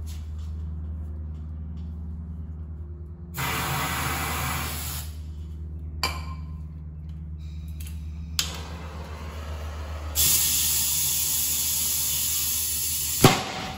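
Tire bead being set with starting fluid and fire. A hissing spray comes about three seconds in, then a small click, then a steady hiss of compressed air and torch for about three seconds. It ends in a sharp bang near the end as the starting-fluid vapour ignites and the bead pops onto the rim. A steady low hum runs underneath.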